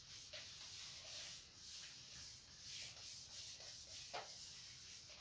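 Faint rubbing strokes on a whiteboard as the writing is wiped off, about one stroke a second.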